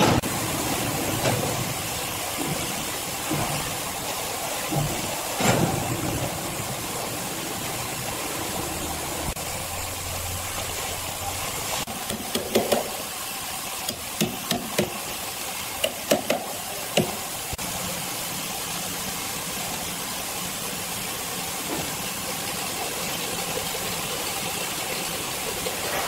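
Steady machinery noise in a sawmill, with a quick run of sharp hammer knocks near the middle as a worker hammers at the wooden blocks or wedges under a heavy timber slab.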